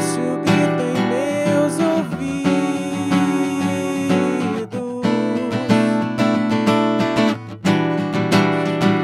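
Cort cutaway acoustic guitar strummed in chords, an instrumental passage of a song.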